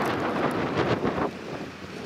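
Wind buffeting the microphone, a rough rushing noise in gusts that eases a little after about a second.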